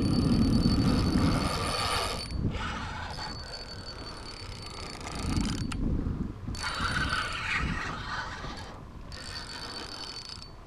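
Spinning reel being cranked against a hooked stingray: a whirring with a steady high whine, in four spells of two to three seconds separated by short pauses. Low rumbling noise sits under it, loudest at the start.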